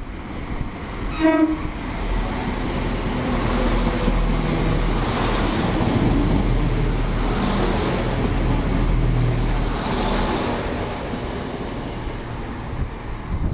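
Class 168 Clubman diesel multiple unit giving a short horn toot about a second in, then passing close by with its diesel engines running and its wheels rumbling on the rails. The sound builds to its loudest in the middle as the train goes past and eases off near the end.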